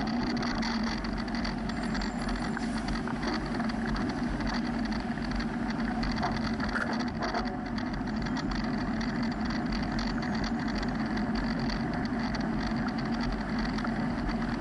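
Steady city traffic noise: a constant rush of car and truck engines running and passing, picked up from a moving bicycle.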